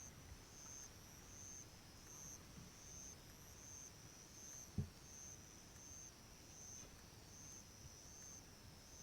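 Faint, high-pitched insect chirps repeating steadily about one and a half times a second. A single low thump comes about five seconds in.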